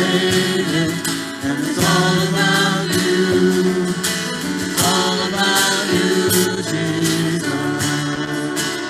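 Live worship band playing a song: strummed acoustic guitars with electric guitar and keyboard, and a voice singing.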